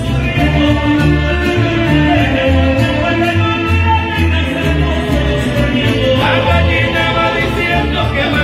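Mariachi ensemble playing, with a violin section carrying the melody over a low bass line. A man's voice comes in singing near the end.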